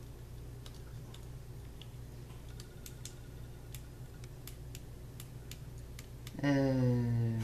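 Faint, irregular small plastic clicks from fingers working a pair of light-up novelty glasses that have stopped flashing; their batteries have failed. Near the end a voice comes in loud with one long sound falling in pitch.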